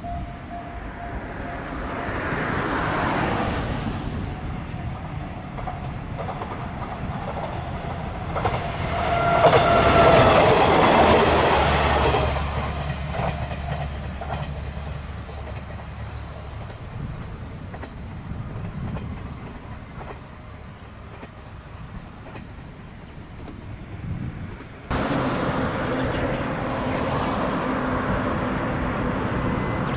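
A train passing on the line, its rail clatter building to a peak around ten seconds in and then fading away. After a sudden cut about 25 seconds in, a distant KiHa 66/67 diesel railcar running with a steady engine drone, mixed with road traffic.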